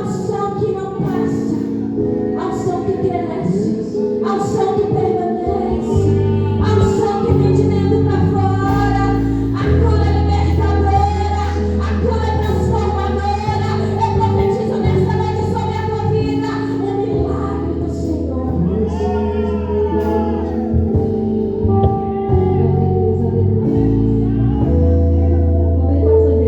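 Gospel praise music: singing over sustained held chords, with a deep bass line coming in about six seconds in.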